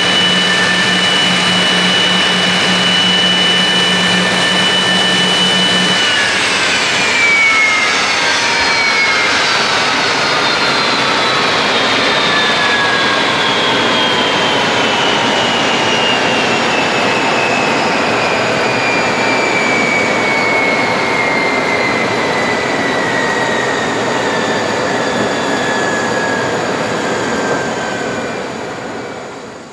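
Kawasaki C-1 transport's JT8D turbofan engines whining at idle, then shut down about six seconds in, their whine falling slowly in pitch as they spin down. It fades out near the end.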